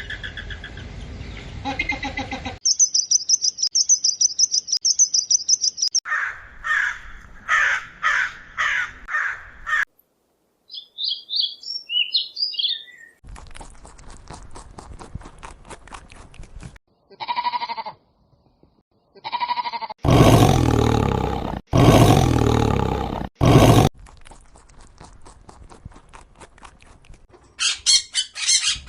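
A string of short, different animal and bird calls, one after another with abrupt changes: a high trill, a run of repeated calls, bird twitters, two short calls, three loud long calls in a row past the middle, and fast high chirping near the end.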